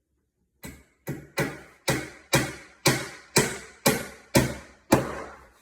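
Hammer striking about ten times, roughly two blows a second, each blow ringing briefly.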